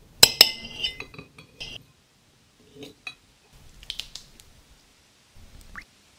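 A steel fork and knife clink and scrape against a ceramic plate while cutting a soft, jelly-like piece of food. A cluster of sharp clinks comes in the first two seconds, then sparser light ticks follow, with a short rising squeak near the end.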